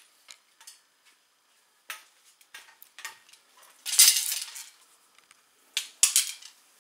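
Crossbow bolts and gear being handled, clinking and rattling against each other: a few light clicks, then two louder clattering rattles about four and six seconds in.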